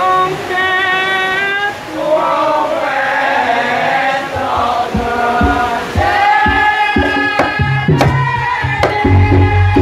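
Live Javanese traditional music with singing voices. Sharp percussion strikes join about halfway through, and a deep drum comes in near the end.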